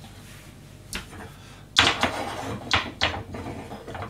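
Cookware being handled: a light click about a second in, then a sharp knock, and two more knocks close together about a second later.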